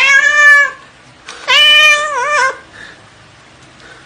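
Tabby cat meowing loudly twice while being handled. Both are long drawn-out meows, and the second, about a second and a half in, wavers near its end.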